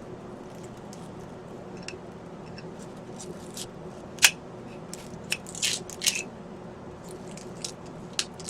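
Knife slicing through a raw onion: scattered crisp crunches and clicks at an irregular pace, the sharpest about four seconds in and a short run of them around six seconds.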